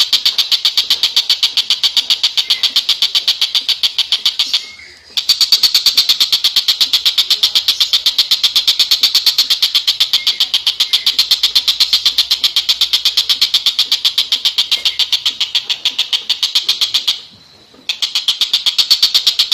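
Tengkek buto (stork-billed kingfisher) giving a fast, high-pitched rattling call of about ten notes a second, held in long unbroken runs that pause briefly about five seconds in and again near the end.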